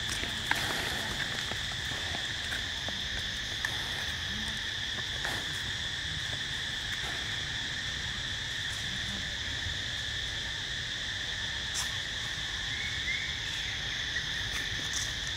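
Insects droning steadily in a continuous high two-pitched hum, with a few light clicks and rustles.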